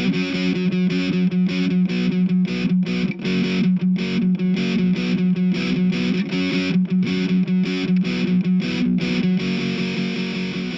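Background music: a distorted electric guitar playing fast, rhythmic chopped strumming over a steady low note.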